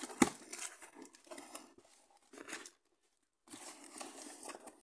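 Packing tape tearing as a cardboard box's flaps are pulled open, with a sharp snap about a quarter second in. After a short pause, cardboard and packing material rustle and crinkle near the end, then stop abruptly.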